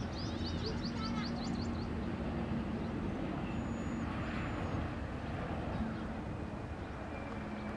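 A distant jet airliner's engines running as it moves along the runway: a steady rumble with a faint low hum. Birds chirp quickly in the first second or two.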